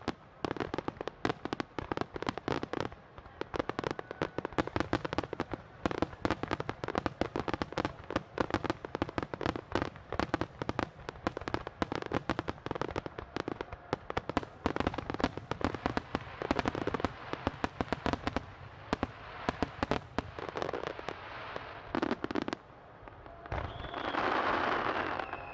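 Japanese starmine barrage of aerial firework shells bursting in rapid succession, a dense, irregular stream of sharp bangs with many overlapping at once. About two seconds before the end the bangs run together into a continuous dense rush of noise.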